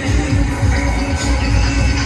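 Loud electronic dance music with a heavy bass, played over a fairground ride's sound system.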